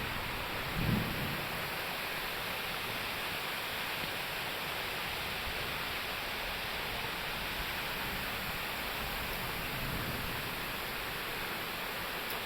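Steady rushing of falling water, with a brief low rumble about a second in.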